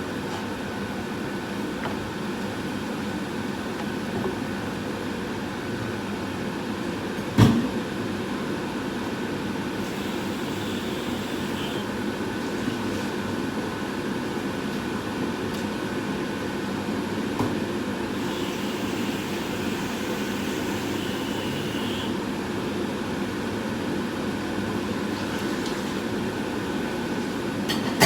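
Steady low mechanical hum with a faint whine, like a fan or motor running, with one sharp knock about seven seconds in.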